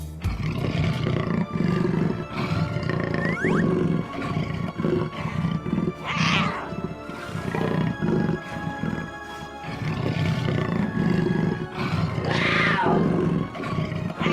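Background music with a pulsing low part, swelling louder twice, about six and twelve seconds in.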